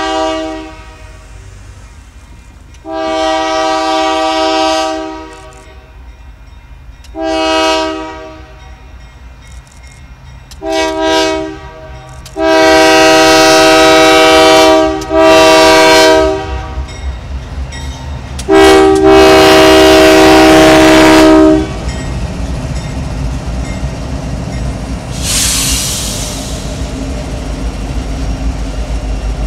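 A GE AC44CW diesel locomotive's multi-chime air horn sounds a string of short and long blasts as the train approaches, the loudest and longest ones about halfway through. The locomotives then rumble past, followed by empty rock hopper cars rolling over the rails, with a brief hiss partway through.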